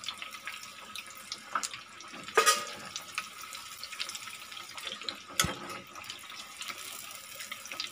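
Vermicelli-coated chicken kababs sizzling steadily as they deep-fry in hot oil in a pan. A steel slotted spatula knocks and scrapes against the pan a few times as they are turned, loudest about two and a half seconds in.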